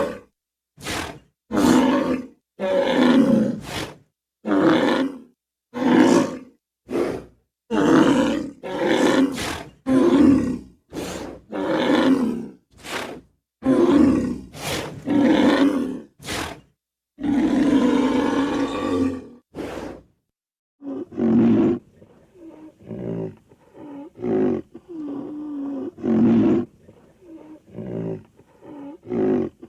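A string of separate bull roar and bellow sound effects, each lasting from half a second to two seconds, with short silences between them. From about twenty seconds in the calls become quieter and shorter.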